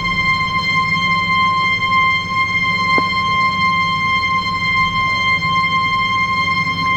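Ball float valve giving off an abnormal steady high whistle at one unchanging pitch with overtones, over a low noisy rush. A single click sounds about three seconds in.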